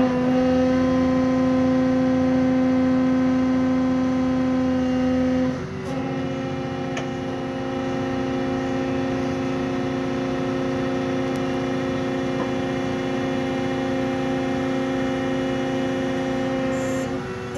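Hydraulic excavator's diesel engine and hydraulic pump running steadily at high revs to power a demolition shear. The engine note dips briefly about six seconds in and again near the end.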